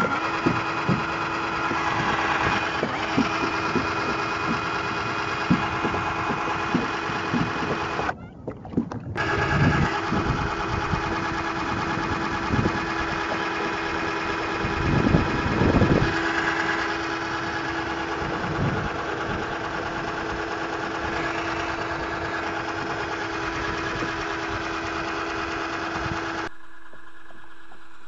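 Cordless drill motor running steadily with a whine, driving a Drill Paddle propeller that pushes the kayak, with scattered low knocks. The motor cuts out briefly about eight seconds in, then runs again.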